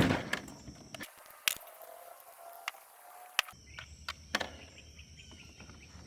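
Scattered clicks and light knocks of hands working a hex wrench and plastic leaf-blower tube parts, with a sharp knock at the very start.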